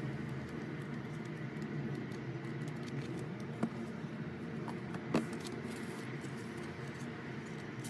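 Album packaging being handled during unboxing: light rustling and small contact noises, with two sharp clicks or taps about three and a half and five seconds in.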